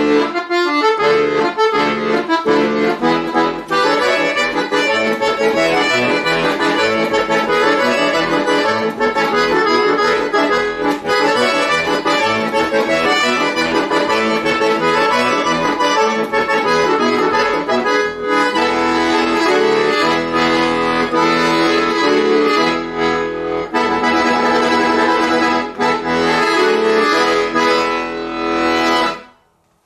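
Chromatic button accordion played solo: quick runs of notes at first, then full held chords, ending on a final chord that stops sharply about a second before the end.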